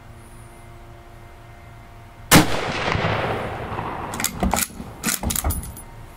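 A single close rifle shot from a scoped Mosin-Nagant in 7.62x54R, with a long echoing tail. About two seconds later come two quick runs of sharp metallic clacks, the bolt being worked to eject the case and chamber the next round.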